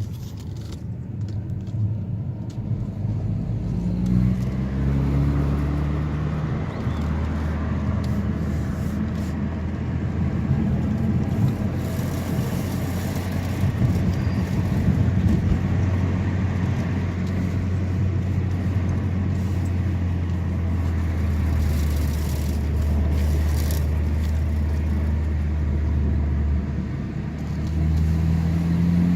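Car driving: the engine rises in pitch as it speeds up, then settles into a steady low drone at cruise, and picks up again near the end. The owner reports this as an abnormal noise from the chassis.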